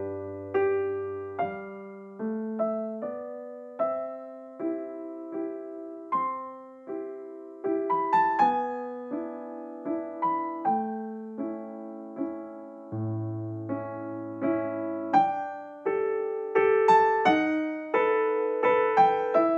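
Background music: a gentle keyboard melody of struck notes that each fade away, over a few low held bass notes.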